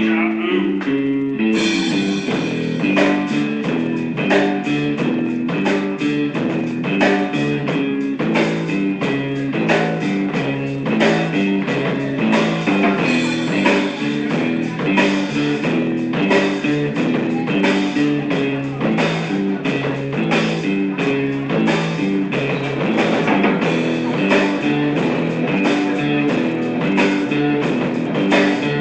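Instrumental guitar music with drums and no singing; the fuller, percussive part comes in about a second and a half in.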